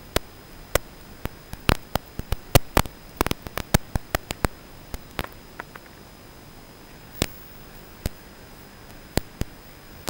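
Radio static from an analog FPV video receiver: a steady hiss broken by sharp, irregular clicks and crackles, dense in the first six seconds and only a few after that.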